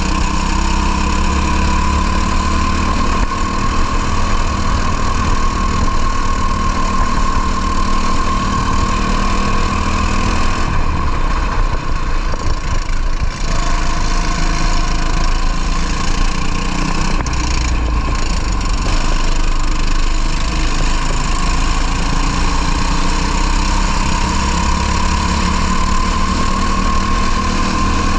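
A racing kart engine running hard, its note slowly rising and falling with the revs. The engine sound drops off about eleven seconds in and again briefly near seventeen seconds, then picks back up.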